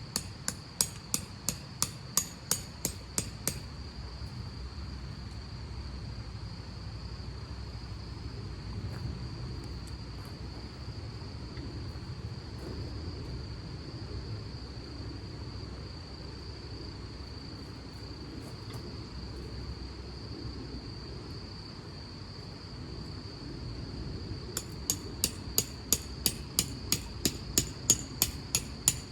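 Hammer striking in quick, even strokes, about three a second, for the first few seconds and again over the last five; in between only a steady low rumble.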